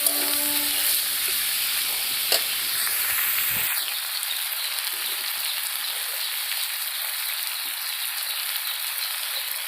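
Food sizzling steadily as it fries in a pan, with one light knock about two seconds in.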